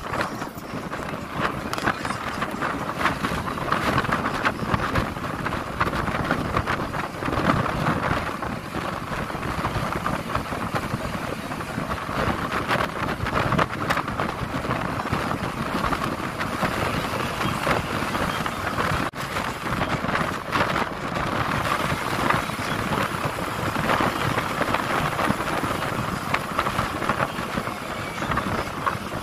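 Passenger bus driving on the road, heard from inside the cabin: steady engine and road noise with frequent small rattles and knocks.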